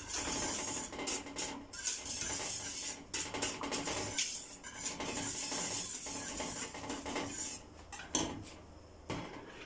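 Wire whisk stirring custard in a stainless steel pot, scraping and clicking rapidly against the metal sides and bottom. The stirring quietens near the end, with one sharp knock.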